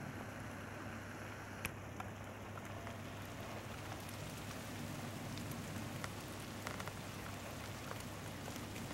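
Light rain falling: a soft, even patter with a few single drops ticking close by.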